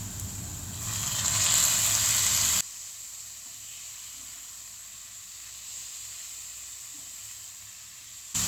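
Food sizzling in a frying pan, louder for about a second and a half, then cutting to a quieter, steady sizzle about two and a half seconds in.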